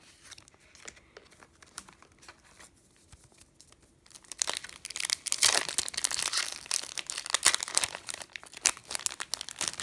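Foil Yu-Gi-Oh booster-pack wrapper crinkling and tearing as it is opened. Faint handling clicks come first, and the dense crinkling starts about four seconds in.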